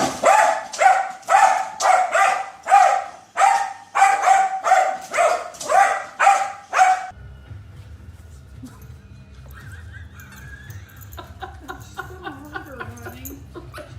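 A dog barking over and over at an even pace, about two barks a second, which stops abruptly about seven seconds in. A quieter stretch with a low hum and faint wavering sounds follows.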